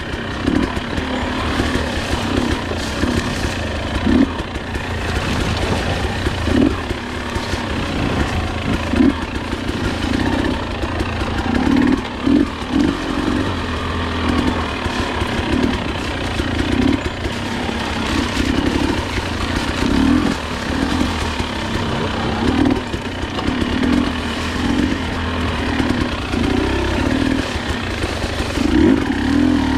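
Husqvarna enduro dirt bike's engine running at low revs on a steep downhill trail, with short, irregular throttle blips every second or so over a steady low rumble.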